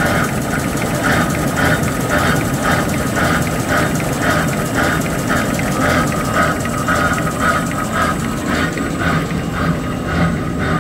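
XY-GU-20A box-drawing facial tissue folding machine running at speed: a constant mechanical rumble with a steady whine and a regular beat of about two strokes a second from its folding cycle.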